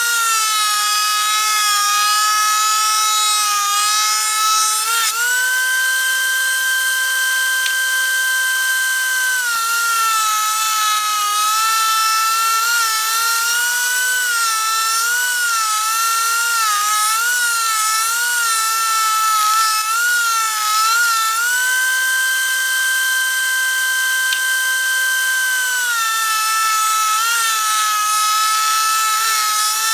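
DeWalt 13-inch thickness planer running with a high, steady motor whine as rough white oak boards feed through. The pitch sags and wavers while the cutterhead is cutting, and twice it rises to a steadier, higher whine for about four seconds as the motor runs free between passes.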